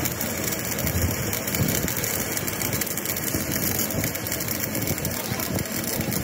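A machine running steadily, a dense, even mechanical noise with no distinct strokes or changes.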